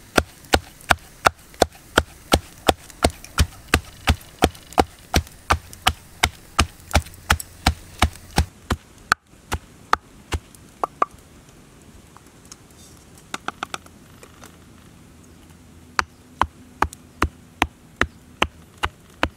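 Wooden pestle pounding aromatics and chillies into a spice paste in a wooden mortar, striking steadily about three times a second. About nine seconds in, the pounding stops, leaving only a few scattered knocks, then it starts again for the last few seconds.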